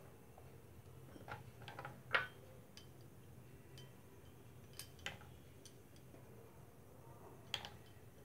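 A few faint, scattered clicks and taps of a steel spoon against glass chutney bowls and a bread bun as chutney is spread inside a split pav, the sharpest about two seconds in and another near the end.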